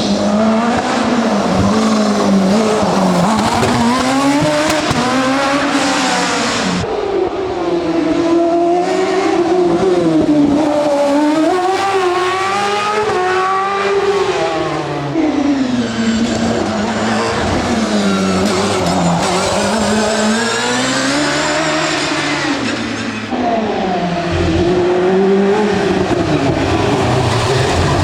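A racing car's engine at full throttle on a hillclimb run. Its note climbs and drops back every second or two as the car accelerates and shifts, with a few brief lifts off the throttle.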